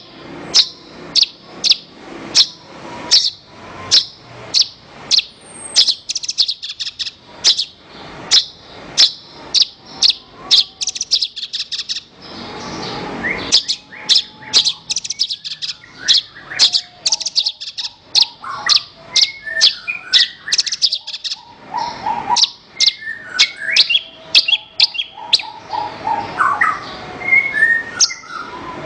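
Javan bush lark (branjangan) singing: a long run of sharp, high chirps about two a second, broken by quick rattling trills, turning to a more varied song with lower notes in the second half.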